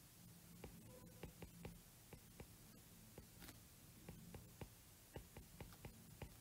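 Faint irregular taps and clicks of a stylus writing on a tablet's glass screen, about two or three a second, over a low steady hum.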